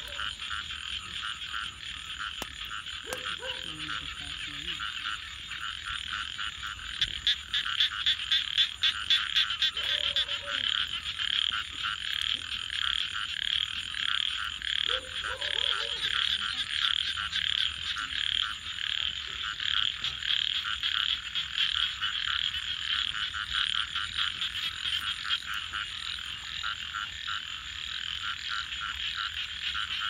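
A dense chorus of frogs trilling and croaking in rapid, steady pulses. It is joined by a thin, steady high tone and a few short, lower calls. About seven to nine seconds in, a cluster of sharp pops rises above the chorus, from a wood campfire crackling.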